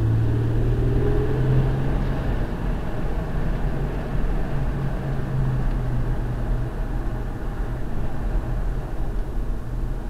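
Toyota Sienna minivan on the move, heard from inside the cabin: a steady low engine hum under even road and tyre noise, the engine note climbing slightly in the first second or two.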